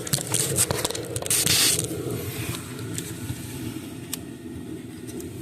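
Clicks, knocks and scraping as an ignition coil is worked loose and pulled out of a Chevy Traverse V6's cylinder head, with a brief hissing rush about a second and a half in, over a steady low hum.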